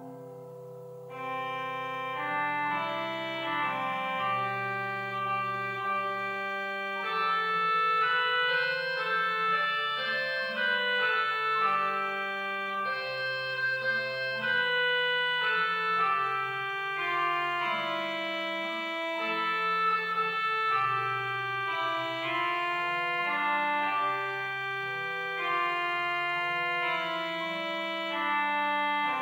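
Church organ playing slow, held chords. About a second in, the sound grows louder and brighter, as if more stops were drawn.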